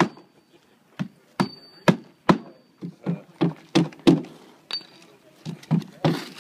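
Roofer's hammer driving nails through asphalt shingles into a plywood board: about a dozen sharp strikes in uneven runs, a few with a brief metallic ring, and a quicker run of lighter taps in the middle.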